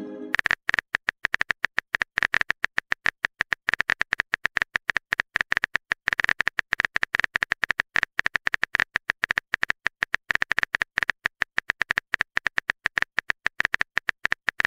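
Simulated phone-keyboard typing sound effect: a quick, irregular stream of key clicks, the typing noise a texting-story app plays while the next message is being written.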